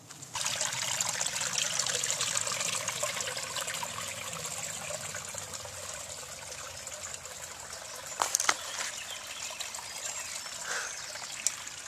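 Small stream trickling, starting abruptly about half a second in and slowly growing fainter. A few sharp clicks come near the end.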